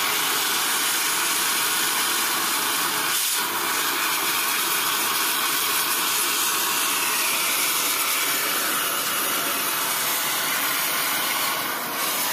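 Gas torch flame hissing steadily as it melts silver in a crucible, a broad even rush.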